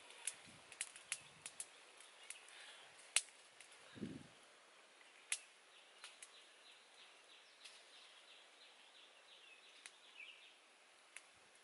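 Small wood fire crackling, with scattered sharp snaps and a dull thump about four seconds in. A faint run of quick ticks sounds in the background around the middle.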